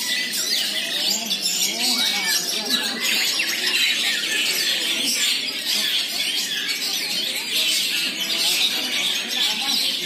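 Many caged songbirds singing at once in a competition chorus: a dense, steady mass of overlapping chirps, whistles and trills, with people's voices faintly underneath.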